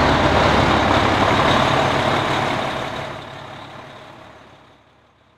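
Aerial ladder fire truck's diesel engine running steadily, then fading away over the last two seconds or so.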